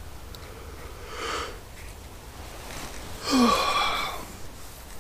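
A man's breathing noises: a soft sniff about a second in, then a louder wheezy breath a little after three seconds with a short low groan that drops in pitch.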